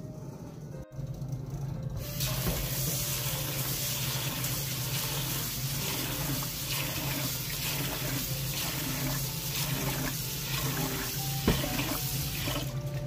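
Kitchen tap running into a rice cooker's inner pot as glutinous rice is washed by hand in a stainless steel sink; the water starts about two seconds in and stops just before the end. A brief knock near the end.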